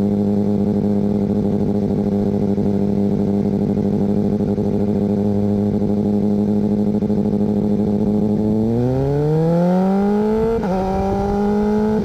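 BMW S1000R inline-four engine running at steady revs, then accelerating with a rising pitch. About 10.5 seconds in the pitch drops sharply as it shifts up a gear, then climbs again.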